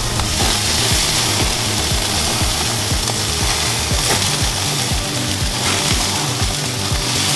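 T-bone steaks and hamburger patties sizzling over the flames of a gas grill, a steady hiss. Music with a regular low beat, about three thumps a second, plays underneath.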